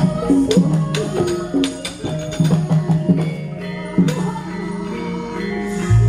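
Javanese gamelan accompanying a wayang kulit shadow-puppet play: metallophones play a melody while sharp metallic and wooden knocks, the dalang's kepyak and cempala, cue the puppet movement, thickest in the first half and again about 4 seconds in. A deep low note comes in near the end.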